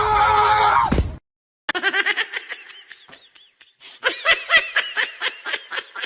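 Laughter in rapid, high-pitched bursts of several a second, starting after a brief silence; before it, a steady noisy sound with held tones cuts off abruptly about a second in.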